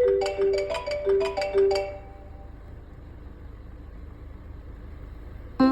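A short marimba-style phone ringtone melody of about eight quick notes plays through the car's stereo, then stops, leaving a low hum before the song comes back in at the very end.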